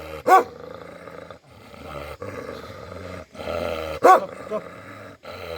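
Bhote Kukur, a Himalayan livestock guardian dog, growling angrily, with two loud, short barks, one near the start and one about four seconds in.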